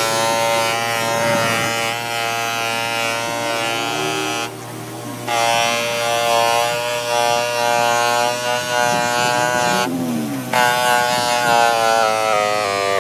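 Electric bench polishing machine whining as a plastic tail-light lens is held against its spinning foam buffing wheel. The whine wavers in pitch, breaks off briefly twice, and falls in steps near the end.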